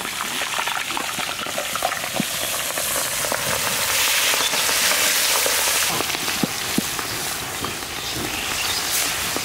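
Pieces of marinated black pomfret frying in hot oil in a large karai: a steady sizzle with scattered crackles as more pieces are slid in from a perforated ladle.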